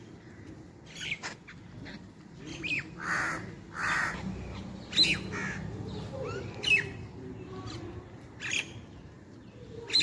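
Common mynas calling while feeding: a string of short, sharp whistled and chattering notes about every second, with two longer harsh calls around three and four seconds in.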